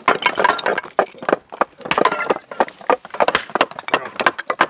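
Several people chopping shavings and kindling off wooden 2x4 boards at once: a rapid, irregular clatter of sharp chops and wood cracks, with voices underneath.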